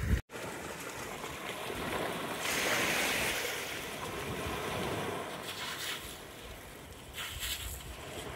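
Sea surf: small waves breaking and washing up a sand-and-pebble shore. One wash swells up about two and a half seconds in.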